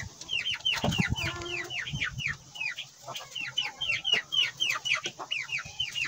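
A young Aseel chicken peeping over and over, short calls that fall in pitch, several a second. A few soft handling thumps come about a second in.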